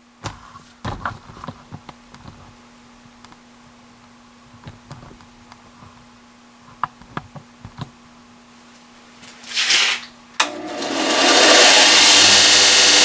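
A few light clicks and knocks, then about ten seconds in a belt sander is switched on, its motor spinning up over a second or two and then running steadily at full speed on a new belt.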